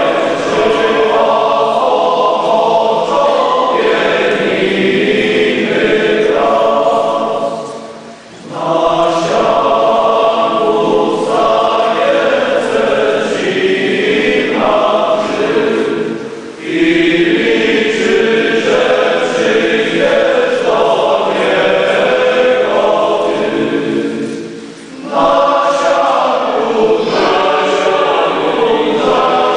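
Men's choir singing a hymn in long phrases of about eight seconds, with a brief breath between phrases.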